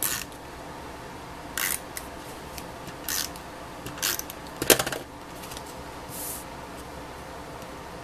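Pieces of cardstock being handled and slid on a cutting mat: several short, separate paper rustles and light taps, the loudest a small cluster about halfway through.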